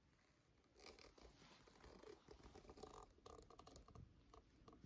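Near silence with faint rustling and a few soft clicks from about a second in: handling noise and a hand stroking a cat's fur.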